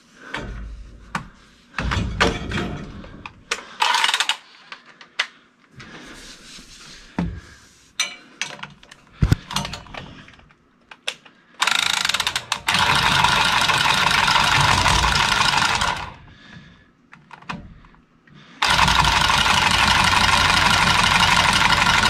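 A Milwaukee M12 cordless plumbing tool's motor running twice, about four seconds each with a short pause between. Before that, scattered clicks and knocks of tools and pipe being handled.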